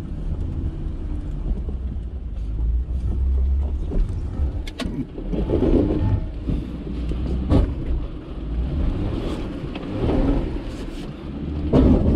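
A vehicle's engine running with a steady low drone, with a few sharp knocks and bumps, the loudest about two thirds of the way through.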